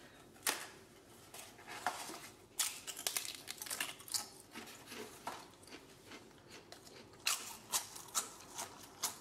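Crisp, freshly fried poppadoms crunching and crackling in irregular sharp cracks, the loudest about half a second in and more clusters in the middle and near the end.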